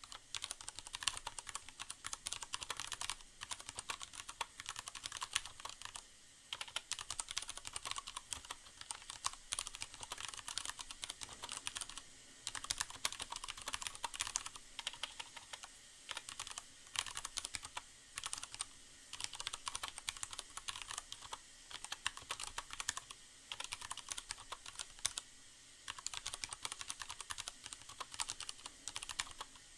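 Steady typing on a Leopold FC750R mechanical keyboard with Cherry MX Brown switches and a sound-absorbing pad in the case: a dense run of key clacks, broken by brief pauses every few seconds. A faint hiss of rain sounds runs underneath.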